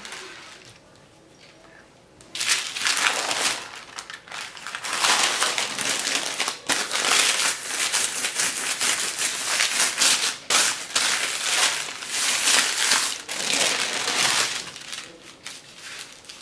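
Baking parchment paper crinkling and rustling as hands roll and press a filled dough log inside it: a short stretch about two seconds in, then a long one from about five to fourteen seconds in.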